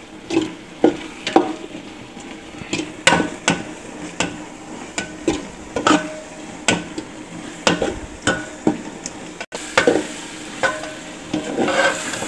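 Steel ladle scraping and knocking against the side and bottom of an aluminium pot in irregular strokes, about one or two a second, as a thick masala of onion, tomato and spice powders is stirred while it fries in oil, with a light steady sizzle beneath.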